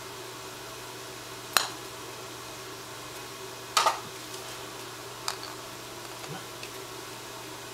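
Sharp clicks of a putter striking a golf ball on carpet: one about a second and a half in, a quick double click near four seconds, and a fainter one after five seconds, over a steady hum of a fan.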